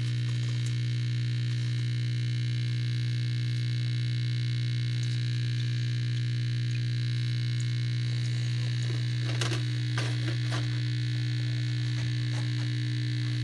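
Sharp SG-618 surface grinder running: a steady electric motor hum with a high whine above it. A few short clicks and knocks come about nine to ten and a half seconds in.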